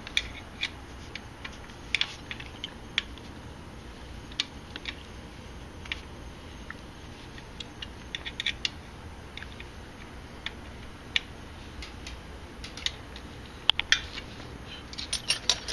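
Irregular sharp metal clicks and taps of a hand wrench working a bolt on a motorcycle's chrome air-filter bracket, coming in small clusters.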